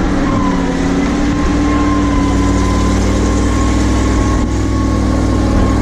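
Ural truck engine running steadily as the truck drives along, with a constant high whine over the low engine note.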